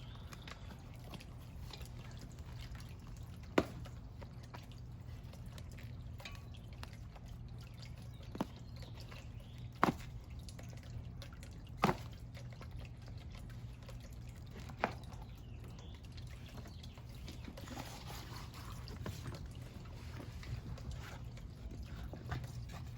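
A few sharp clicks and snaps, spaced several seconds apart, as a BMX tire's bead is worked off the rim by hand with tire levers, over a faint steady low hum.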